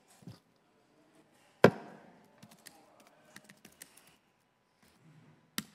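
Laptop keyboard typing: one loud tap about a second and a half in, then a string of light keystrokes and another sharp key tap near the end.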